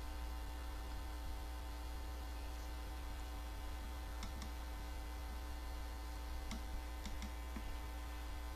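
Steady low electrical mains hum, with a handful of faint clicks in the second half.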